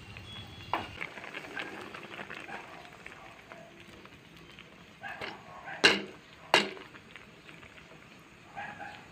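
Metal spoon stirring coconut-cream laing in an aluminium wok, with scraping and a few sharp knocks of the spoon against the wok, two loud ones about six seconds in.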